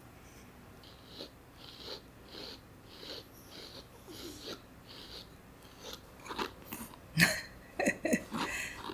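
Grooming brush stroking through a Pomeranian's thick coat: a soft brushing hiss about twice a second, then louder rustling and clicks in the last few seconds.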